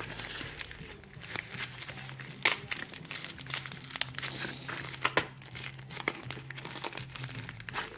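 Packaging being unwrapped by hand: crinkling and rustling with many sharp clicks and crackles, and a few tearing sounds.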